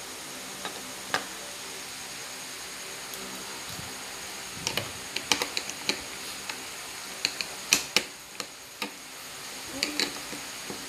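Small plastic toy pieces clicking and tapping as a toy tiger is snapped back together, in scattered sharp clicks over a steady faint room hum.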